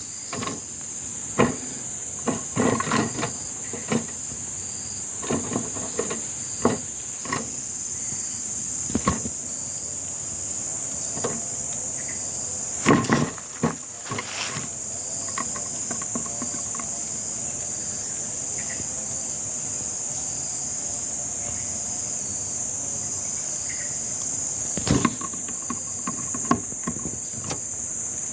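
Steady, high-pitched insect chorus, with scattered sharp clicks and knocks, a cluster in the first several seconds and louder ones about halfway through and near the end.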